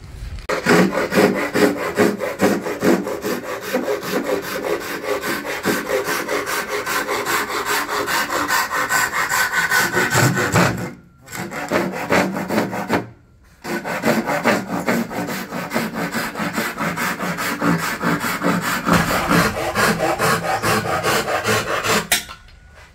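Saw cutting across the end of a thick wooden tabletop board in steady rhythmic strokes, trimming the uneven end square. It stops briefly twice around the middle.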